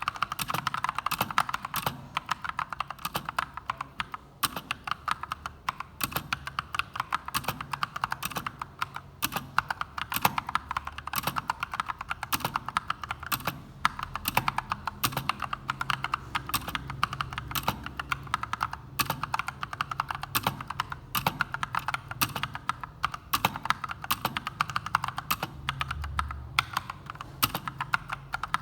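Fast, continuous typing on an Akko 3068 Silent mechanical keyboard: a dense run of key clicks with a few short pauses.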